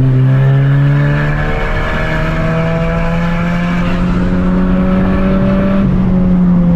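Exhaust of a Honda Civic LXR 2.0 four-cylinder running through an open exhaust cutout, giving a deep, raspy exhaust note. The engine pulls under throttle: its pitch steps up about one and a half seconds in, climbs slowly, then falls back a little near the end as the throttle eases.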